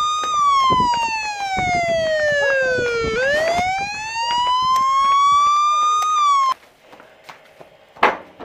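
Police siren wailing, its pitch sliding slowly down for about three seconds and then back up, then cutting off abruptly about six and a half seconds in. A sharp knock follows near the end.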